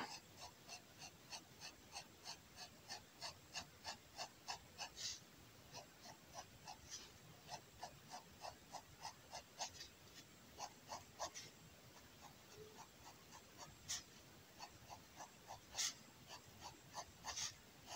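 Fineliner pen hatching on kraft paper: faint, quick, short scratching strokes at about three to four a second, with a few pauses and some louder strokes in the second half.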